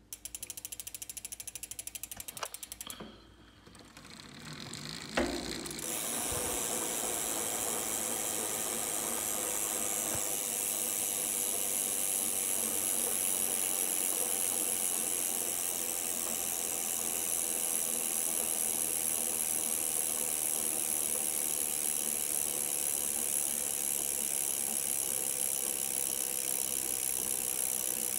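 Shimano Deore XT FH-M8010 rear freehub freewheeling as the wheel spins. It gives a rapid run of pawl clicks for the first few seconds, dips briefly, then from about six seconds in settles into a steady, high-pitched buzz.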